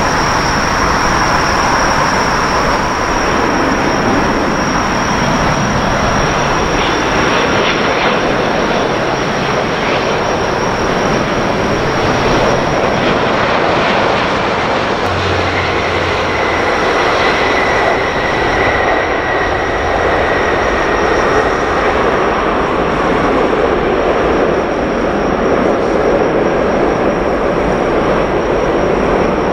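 Airbus A350-1000 with Rolls-Royce Trent XWB engines on landing approach, a steady jet roar as it passes overhead and touches down. A steady high-pitched tone runs under it.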